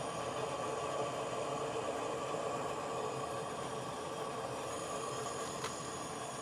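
Metal lathe running steadily, with a faint high whistle joining in near the end and one light click just before it stops.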